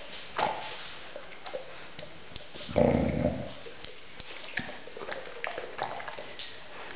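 Shar-pei dog making short, low whining grumbles, a brief one near the start and a louder one about three seconds in, its way of asking for a treat. Light clicks of claws on the tile floor between them.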